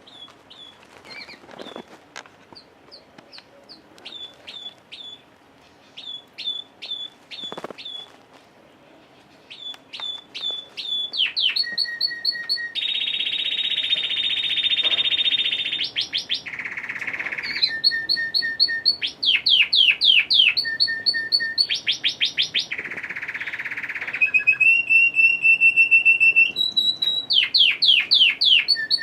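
Red factor canary singing: soft, widely spaced chirps at first, then from about eleven seconds in a loud full song of rapid trills and long rolls.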